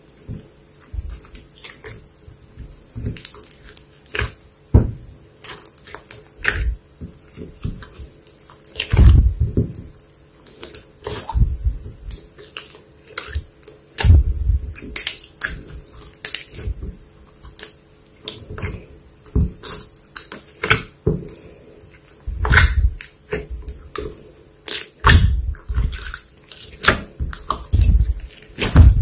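Slime being squeezed and kneaded by hand: an irregular run of sticky clicks and pops, with heavier low squelches every few seconds.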